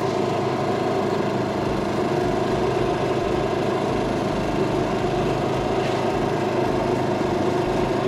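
A fishing boat's engine idling, a steady drone that holds the same pitch throughout.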